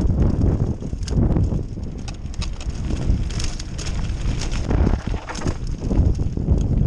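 Downhill mountain bike running over rough trail: a steady rumble of wind and ground noise with many quick rattling clicks and knocks from the bike.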